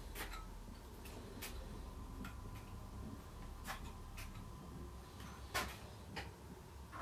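Small, sharp clicks and taps, about eight and irregularly spaced, as insect pins are handled and pushed into a polystyrene setting board around a beetle's legs.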